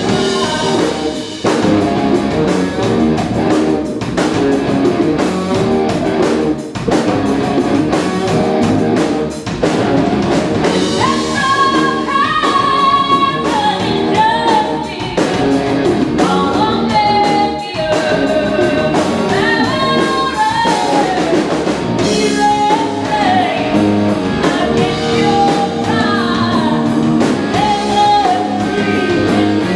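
Live rock band playing: a woman sings lead over two electric guitars and a drum kit. Her sung lines stand out most from about ten seconds in.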